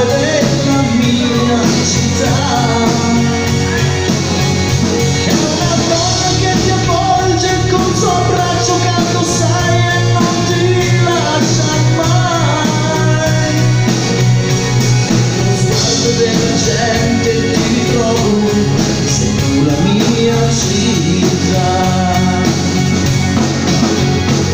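Live band playing a song: drum kit and keyboards with sung vocals, amplified through the PA.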